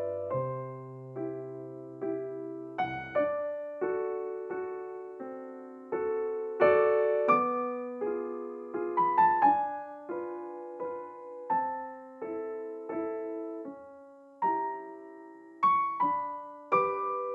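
Soft background piano music: a gentle melody of single struck notes over slow bass notes.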